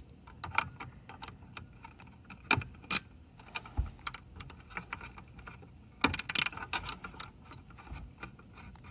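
Small flathead screwdriver working the screw of a roboRIO's power-input screw terminal: irregular light clicks and scrapes of metal on plastic, with a denser run of clicks about six seconds in.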